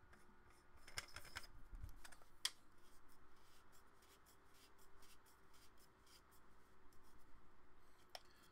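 Near silence with faint handling noise from a camera lens being gripped and twisted: a few light clicks and rubs about a second in, a sharper single click about two and a half seconds in and another near the end, over a faint steady hum.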